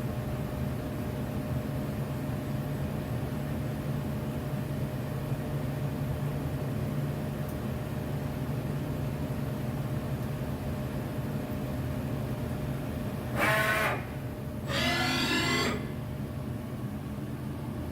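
Milltronics ML-16 CNC lathe running with a steady hum and a constant thin tone. About 13 seconds in comes a short whine, and a second, longer one of about a second follows.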